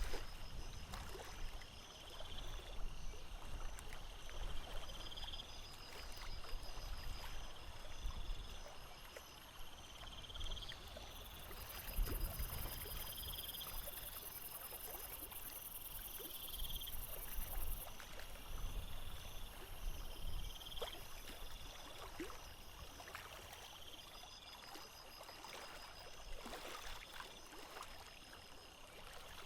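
Water lapping and slapping against a sailboat's hull, with soft low knocks. High chirps repeat about every two seconds, over a steady high pulsing trill.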